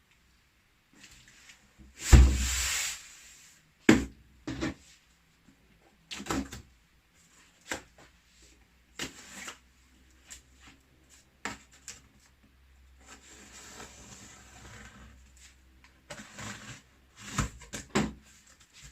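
Handling noise from unpacking a Kevler GX 5000 amplifier: a loud rustling rush about two seconds in, then scattered knocks and clicks, with a softer stretch of rustling later on.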